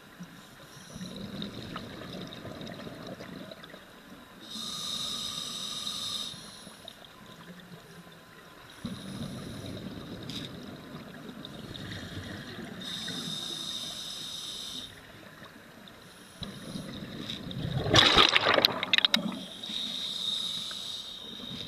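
Scuba breathing underwater through a regulator: twice a slow breath, a low bubbling rumble followed by a hiss. About eighteen seconds in comes a loud clatter of sharp knocks against the diving gear.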